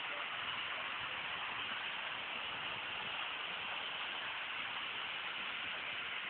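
Steady hiss with no distinct events, even and unchanging throughout.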